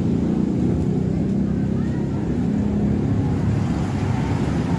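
Steady low rumble of road traffic, with motor vehicles running close by.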